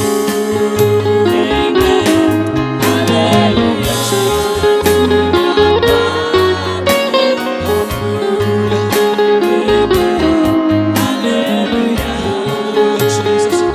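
Praise and worship music: a band playing guitar over a steady bass line and drum beat.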